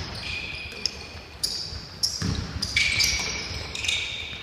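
Basketball shoes squeaking on a hardwood gym floor as players cut and run, with several short high squeaks and a few ball bounces and knocks.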